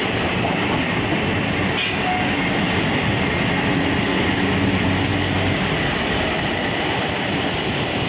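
WDM-3A diesel-electric locomotive close by, its ALCO V16 diesel engine running as a steady drone with a low hum underneath. There is a single brief metallic clank about two seconds in.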